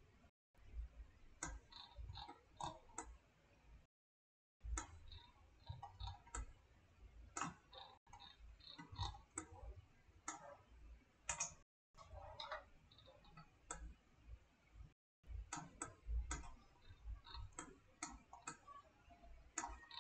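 Faint, irregular clicking of a computer mouse being used to orbit and zoom a 3D model, a few clicks at a time with short pauses between.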